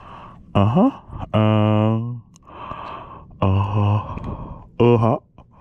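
A man's muffled, closed-mouth vocal sounds, made while he holds a camera in his teeth: four wordless hums or grunts, the second one long and held, with a breath between.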